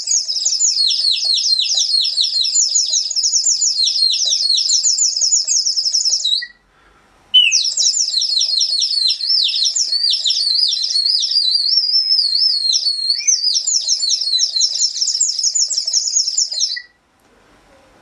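Ceramic water bird whistle blown with water inside, giving a rapid, high warbling trill like birdsong. Two long blows with a short break about six and a half seconds in; the second has a few held, wavering notes in the middle and stops about a second before the end.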